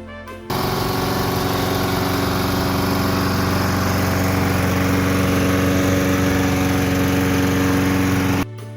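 Lawn mower engine running steadily at speed. It cuts in abruptly about half a second in and cuts off just as abruptly near the end, with music on either side.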